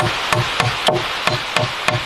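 Hammer driving nails: quick, even strikes about three a second, each with a short ringing tone, over a steady hiss.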